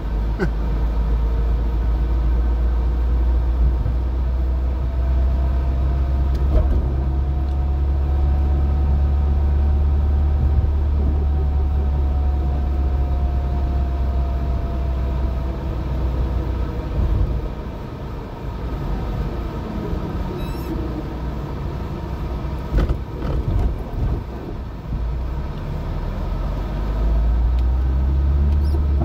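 Alfa Romeo 75 on the move, heard from inside the cabin: a steady low engine and road rumble with a faint whine that slowly rises and then falls in pitch. The rumble drops about two-thirds of the way through and builds again near the end.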